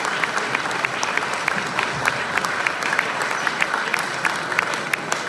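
Audience applauding steadily, a dense run of many overlapping hand claps.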